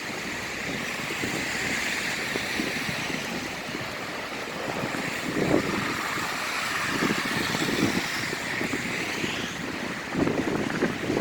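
Blizzard street noise: a steady hiss of wind and snow, with vehicles passing on slushy pavement, their tyre noise swelling now and then, about halfway through and again near the end.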